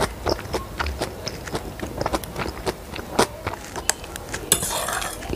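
Eating utensil clicking and clinking against ceramic plates of instant noodles, mixed with close-miked eating sounds, as a run of many short sharp ticks. A brief hiss-like burst comes near the end.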